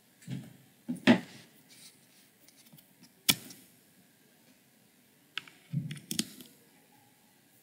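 Handling noise while a charger is plugged back into a device: scattered clicks, knocks and rustles. The loudest group comes about a second in, a single sharp click follows a little past three seconds, and a few more knocks come near the end.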